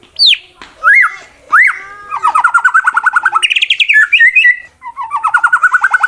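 White-rumped shama (murai batu) singing: three loud sweeping whistles, then a fast rattling trill followed by higher chattering notes, a short break, and the trill again near the end.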